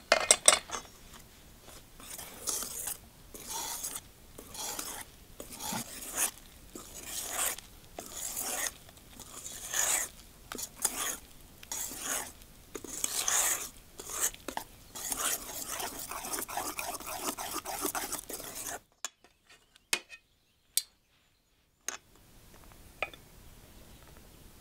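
Metal wire whisk beating pumpkin batter in an enamel bowl: repeated scraping, clinking strokes. The strokes stop about three-quarters of the way through, leaving silence with a few faint clicks.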